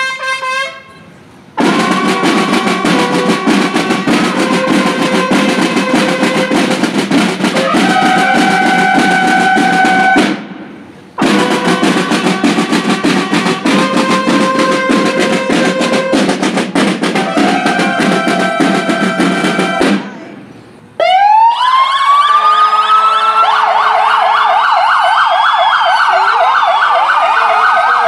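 Snare drums playing a continuous roll under a bugle call, in two long phrases of about nine seconds each with a brief break between. About two-thirds of the way in, several emergency-vehicle sirens wind up together and keep wailing and yelping.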